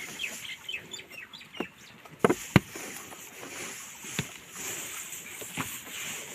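Chickens clucking and chirping in quick short falling calls early on, then several sharp knocks, the loudest two close together about two and a half seconds in.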